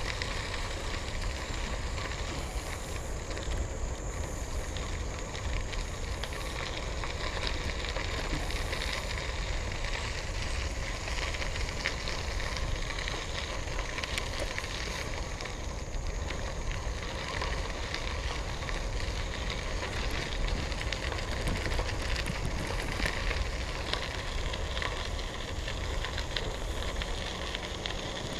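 Bicycle tyres crunching and crackling over a gravel trail, with a steady low rumble underneath.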